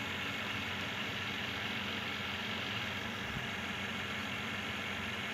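Desktop computer's cooling fans spinning steadily with an even whir and hiss, on its first power-on after the motherboard's swollen capacitors were replaced, as the machine boots.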